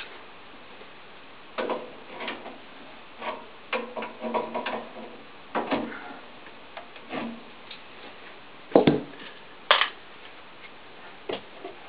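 Irregular metallic clicks, knocks and clinks from hands and tools working the fittings and pipework of an open e.l.m. leblanc GLM 5 wall-mounted gas boiler, with two louder knocks close together about three-quarters of the way in.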